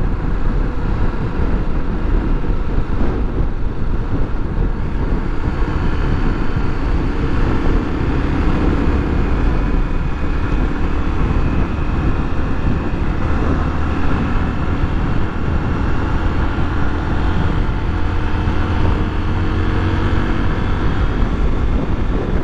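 Motorcycle engine running steadily while riding at road speed, mixed with heavy wind noise on the bike-mounted microphone.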